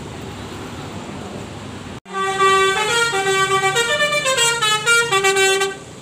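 Bus telolet horn playing a tune of quick stepped notes, up and down in pitch, starting about two seconds in. Before it, a steady low rumble of engine and yard noise.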